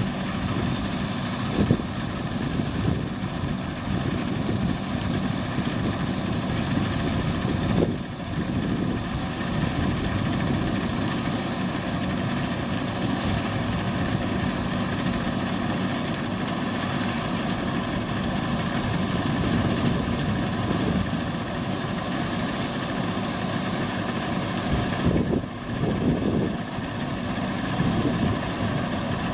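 Lely combine harvester running steadily while harvesting barley, a constant engine drone with machinery noise that dips briefly twice.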